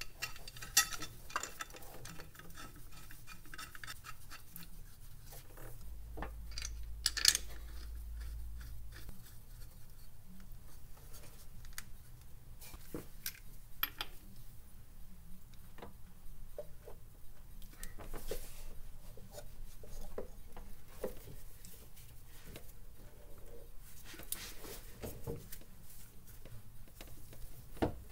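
Scattered metallic clinks, taps and scrapes of bolts, tools and an aluminium flat bar being fitted to a harmonic balancer pulley. A couple of sharper knocks stand out, about a second in and about seven seconds in.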